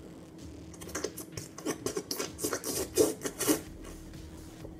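Drink being sucked up through a plastic drinking straw: a run of short, irregular slurping gurgles that starts about a second in and stops shortly before the end.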